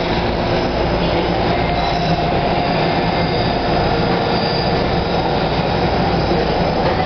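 Interior sound of a TTC H5 subway car: a steady rumble and hum of the train with rail and wheel noise.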